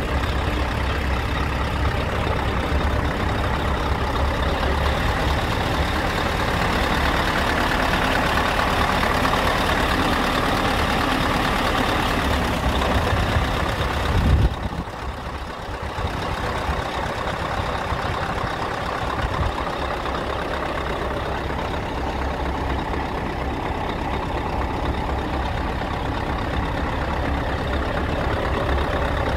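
Scania R tractor unit's diesel engine idling steadily, a continuous low rumble, with a brief louder bump about halfway through.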